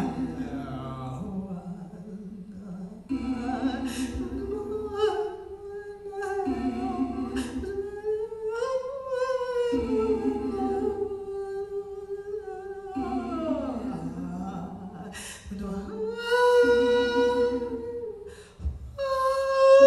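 A woman's voice singing long, slowly sliding wordless notes over an electronic backing played from a pad controller, a low patterned chord that comes in for a second or so about every three seconds. A few sharp clicks sound along the way, and the voice swells louder near the end.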